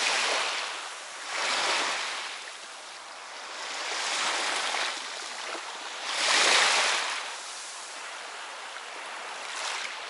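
Small waves of the Sea of Azov breaking and washing up a shell-and-sand beach. The surf comes in swells every two to three seconds, the loudest about six and a half seconds in.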